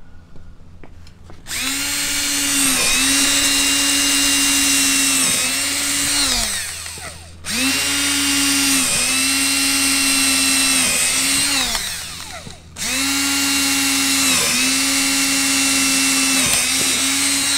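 Makita 18V cordless drill boring bolt holes through a boat's fiberglass deck for a rod holder, in three long runs with short pauses between. The motor's whine dips in pitch each time the bit bites under load.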